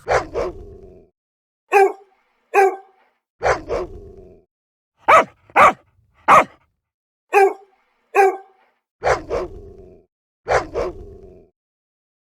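A dog barking repeatedly: about a dozen short, sharp barks, some single and some in quick pairs, with short silences between them.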